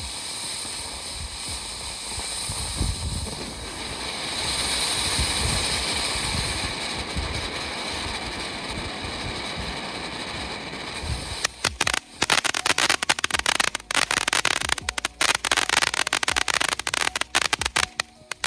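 Game Mode consumer fountain firework spraying with a steady hiss. About two-thirds of the way in it breaks into dense, rapid crackling.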